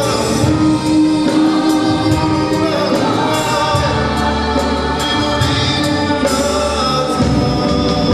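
Live gospel music: a choir singing with a full band of drum kit, electric guitars and keyboard, the cymbals keeping a steady beat.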